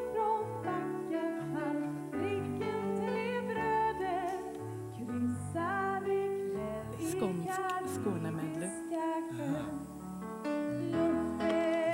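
A woman singing a slow song with vibrato, accompanied by guitar.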